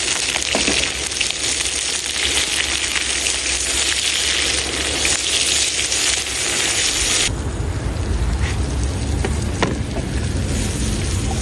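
Heavy rain falling on the roof of a small camper: a dense, even hiss with scattered sharp ticks of drops. About seven seconds in it gives way abruptly to a lower, rumbling noise.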